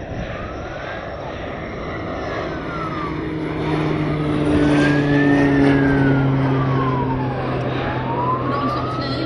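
Warning siren on an Air Tractor AT-802 Fire Boss water bomber wailing slowly up and down, sounded to warn people on the ground of the water drop. Under it the aircraft's turboprop drones steadily, growing louder toward the middle as it passes.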